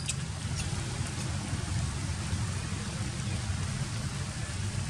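A steady low rumble of outdoor background noise, with a few faint sharp clicks in the first second.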